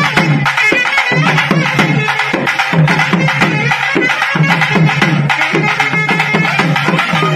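Loud traditional festival music: fast, dense drumming with a sustained melody over it.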